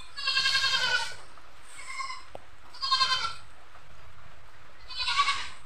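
A goat bleating four times in short, high-pitched calls; the second bleat is faint.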